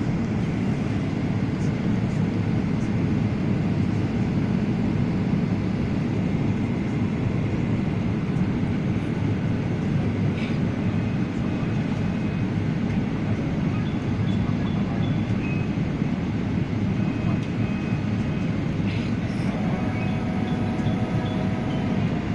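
Steady low rumble of an airliner's cabin noise: engine and airflow noise heard from inside the passenger cabin during the approach.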